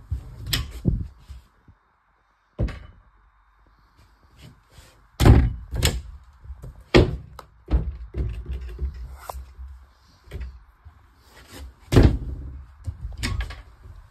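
Irregular hollow thuds and knocks inside a static caravan's lightweight interior, about half a dozen loud ones among smaller knocks, like doors bumping and footsteps on the thin floor.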